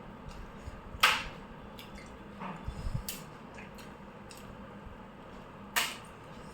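Dishes and utensils handled while eating noodles: a few sharp clicks and taps, the loudest about a second in and another near the end, over a faint steady hum.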